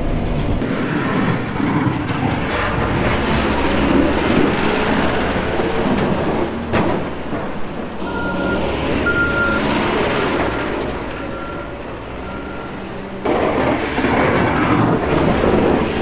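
Cat 257D track skid steer's diesel engine working hard as it pushes snow with a hydraulic snow blade. In the middle a short high beep repeats about once a second, like a reversing alarm.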